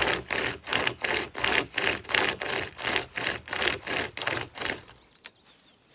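Handheld pocket chainsaw, a toothed chain pulled back and forth by its handles, rasping through the trunk of a dead tree in quick strokes of about three a second, stopping about five seconds in.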